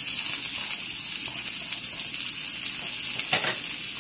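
Chopped onions and curry leaves sizzling in hot oil with fennel seeds in a stainless steel kadai: a steady frying hiss as the tempering for a curry begins.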